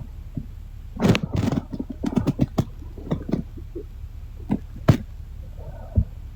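A cluster of sharp clicks, knocks and rustling for about two and a half seconds. Then two separate sharp clicks and a single low thump near the end.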